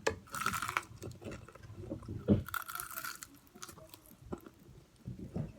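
Close-up chewing and crunching of food in the mouth, with two louder crunchy bites, one right at the start and one about halfway through, and softer chewing between.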